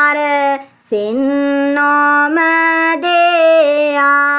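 A woman chanting a line of classical Sinhala verse in the traditional sung style, with no accompaniment. She holds long, steady notes and pauses for breath briefly about half a second in.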